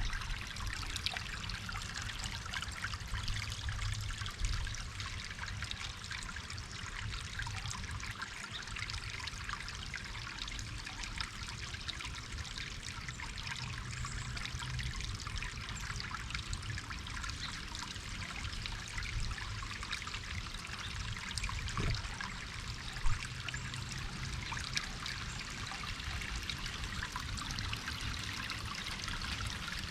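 Small stream of water trickling and babbling steadily, with one brief knock about three quarters of the way through.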